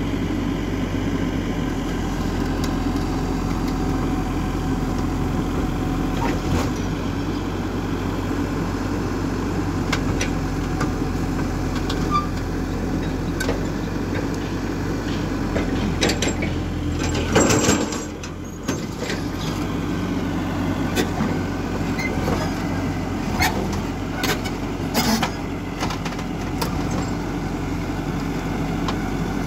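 XCMG XE140 crawler excavator's diesel engine running steadily as the machine drives its steel tracks up onto a low-bed trailer, with scattered clanks from the tracks. There is one louder, noisier burst about two-thirds of the way in.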